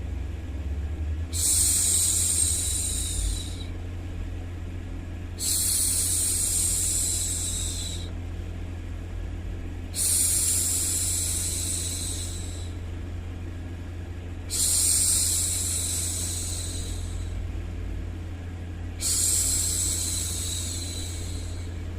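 A woman shushing a baby, five long 'shhh' sounds about every four and a half seconds, each fading away, over a steady low white-noise hum.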